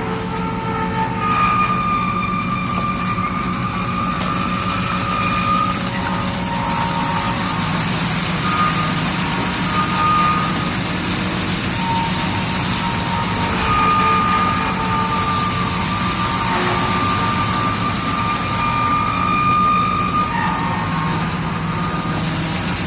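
Heavy truck or construction machinery engine running steadily, with a high whine that comes and goes several times.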